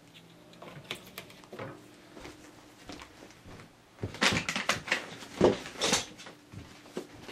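Objects being handled and set down on a table: faint scattered clicks, then a cluster of louder knocks and bumps about four seconds in.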